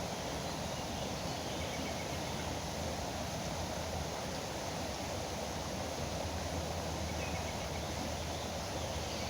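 Steady rushing of a foaming river, an even noise with no breaks, with a few faint short bird chirps above it.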